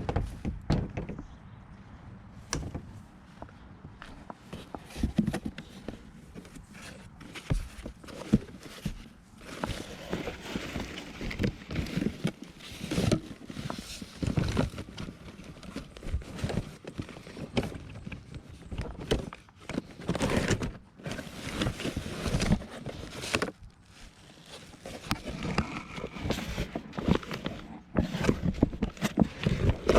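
Footsteps with irregular knocks and rustles of things being handled.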